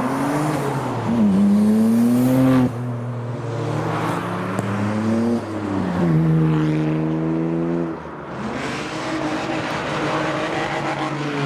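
A car engine revving hard and holding high revs, then dropping off sharply, three times in a row, followed by a softer rise and fall of the revs.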